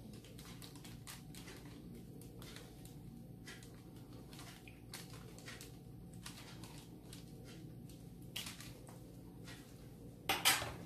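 Metal spoon spreading ketchup over stacked lavash flatbreads: faint, repeated soft scrapes and taps, with a brief louder rustle near the end.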